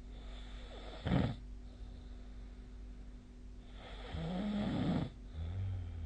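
A person snoring in sleep: a short snore about a second in, then a longer one with a buzzing, vibrating tone about four seconds in, trailing off into a lower hum near the end.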